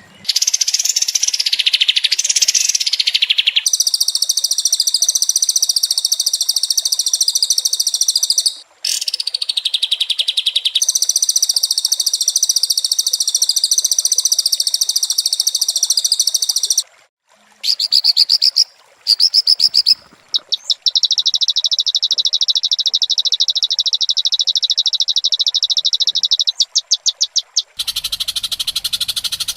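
High, rapidly pulsing animal trills in a spliced nature track, changing abruptly from segment to segment, with short breaks about a third of the way in and again a little past halfway.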